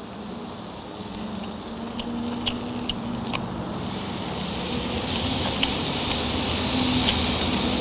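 Beef sirloin sizzling on a hot grill pan. The sizzle grows steadily louder, with a few sharp pops and clicks.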